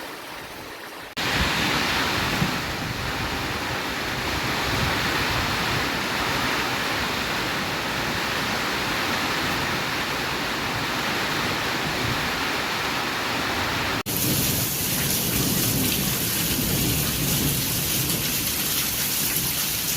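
Heavy rain falling steadily, a loud even hiss. It comes in abruptly about a second in, and briefly drops out near the 14-second mark before returning with a brighter, hissier tone.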